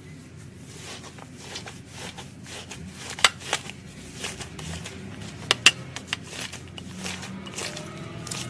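Slime being squeezed and worked by hand, giving a run of irregular small clicks and crackly pops, with two sharper pops about three and five and a half seconds in.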